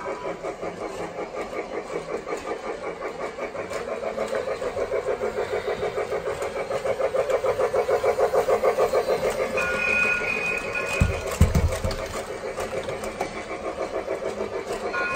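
Lionel Polar Express toy train running with a steady rhythmic chugging that grows louder over several seconds. A brief whistle tone sounds about ten seconds in, followed by a few low thumps.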